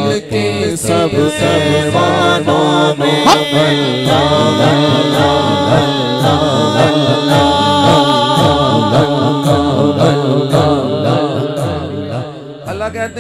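A man singing an Urdu naat, a devotional song, into a handheld microphone, his voice trailing off near the end.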